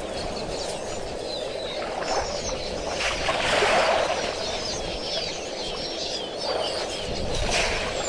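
Many short bird chirps over a steady rushing outdoor background that swells about three seconds in and again near the end.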